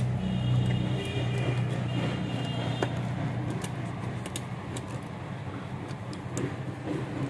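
A low steady hum that fades after about three seconds, with a few light metallic clicks as a screwdriver tightens an earth wire's screw on the metal body of a main switch box.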